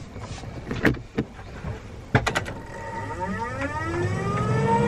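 Roof vent fan in a camper van being switched on at its knob: a few clicks from the dial, then the motor spinning up with a whine that rises in pitch and grows louder toward full speed.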